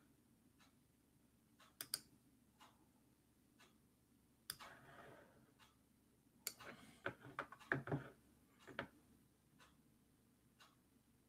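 Faint, regular ticking about once a second in a quiet room. There is a brief rustle about four and a half seconds in, and a cluster of louder clicks and knocks between about six and a half and nine seconds.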